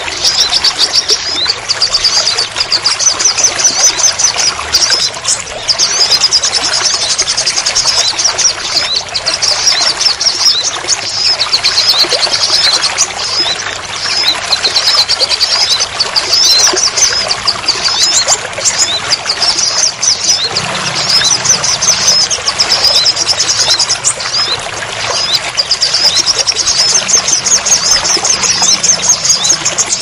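Steady rain water pouring and splashing, with a small bird's rapid, high trilling song over it in repeated phrases of a few seconds each.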